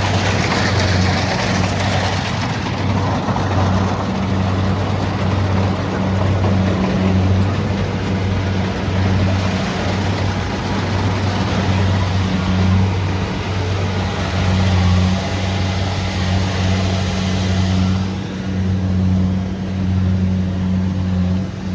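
Kubota DC70pro combine harvester running, with a steady low engine hum under a broad rushing noise from the machinery. The rushing noise eases off about eighteen seconds in.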